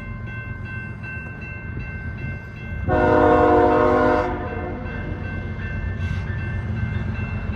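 Freight locomotive's horn sounding one loud blast of just over a second, about three seconds in, warning at a grade crossing. Beneath it is the steady low rumble of the approaching CSX intermodal train.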